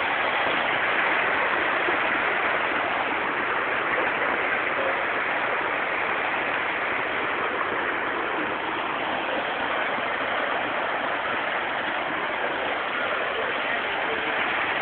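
Heavy rain falling, with water rushing along a flooded street, a steady even hiss.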